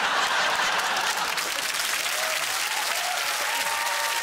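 Studio audience applauding steadily, with a few voices calling out over the clapping in the second half.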